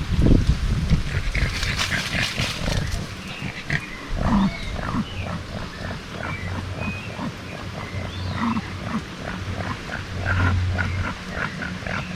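Outdoor farm ambience of animal calls: short notes repeated about two to three times a second, over a low hum that comes and goes.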